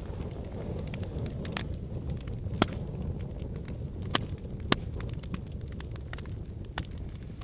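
Wood fire burning in a fireplace: a steady low rumble of flames under scattered sharp crackles and pops, with three louder pops about two and a half, four and four and a half seconds in.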